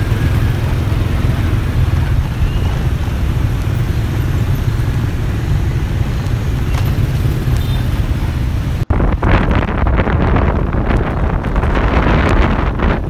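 Steady low rumble of motorbike traffic crawling in a jam. About nine seconds in, the sound cuts suddenly to wind buffeting the microphone of a moving motorbike.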